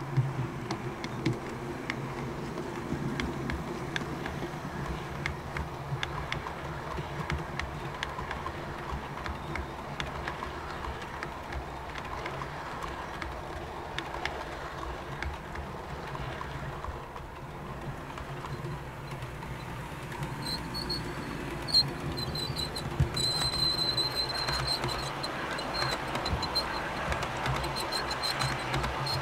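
OO gauge model trains running on the layout track: a steady motor hum with many light clicks of the wheels over rail joints as the coaches and then a rake of flat wagons roll past. Near the end a thin high tone comes and goes over the running.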